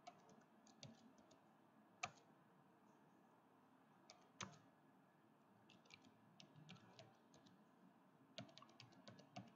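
Faint computer keyboard typing: scattered key clicks, with two louder single keystrokes about two and four seconds in and quicker runs of keys in the second half.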